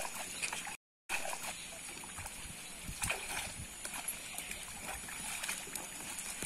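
Shallow pond water splashing and sloshing as a bamboo tube eel trap is pulled and shaken out of the water by hand.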